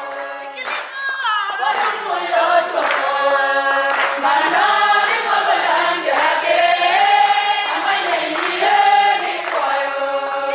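A small group of women singing together, with sharp hand claps about once a second.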